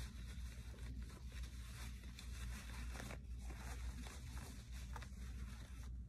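Paper towel rustling and crinkling as hands unwrap a bare-root seedling from it, with a few sharper crackles along the way, over a steady low hum.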